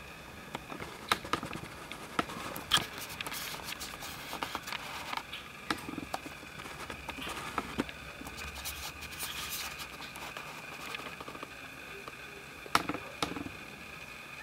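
Newborn kittens nursing and squirming against their mother's fur: soft rustling with scattered small clicks, a few sharper ones about a second in, near three seconds, and again near the end.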